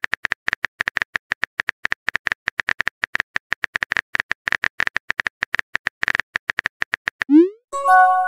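Rapid keyboard-tap clicks of a texting app's typing sound effect, several a second, as a message is typed out. About seven seconds in the taps stop for a short rising swoosh as the message sends, followed by a brief chime of a few steady tones near the end.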